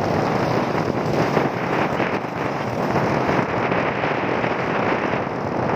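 Wind rushing and buffeting over the phone's microphone while riding on a motorcycle, a steady rough noise with the ride's road and engine rumble underneath.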